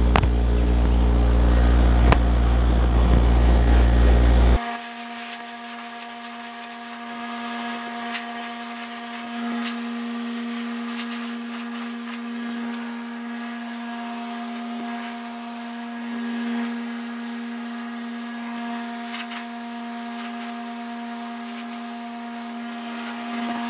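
Steady shop machinery hum with a deep rumble for the first four and a half seconds; then, after a sudden drop in level, a quieter, steady pitched hum with a faint hiss from an air spray gun laying down polyester primer.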